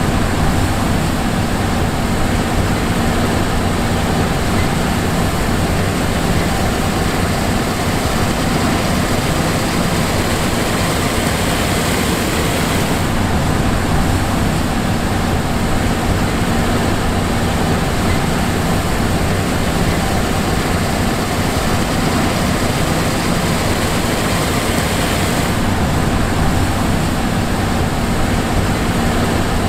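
John Deere S780 combine running steadily: a constant diesel engine drone with steady machinery hum and a high hiss, no revving or change in load.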